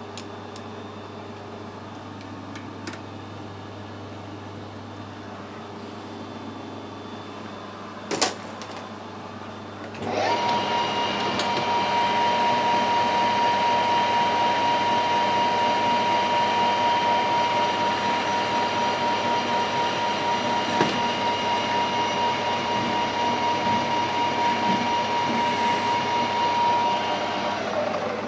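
An electric machine tool starts up about ten seconds in and runs steadily with a high whine. It winds down with falling pitch near the end. A sharp click comes just before it starts.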